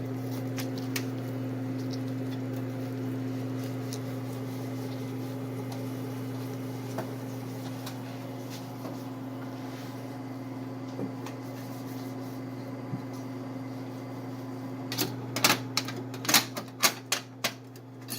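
Metal espresso machine parts being handled, a quick run of sharp clinks and knocks starting about 15 seconds in, after scattered light clicks. A steady low hum lies under it.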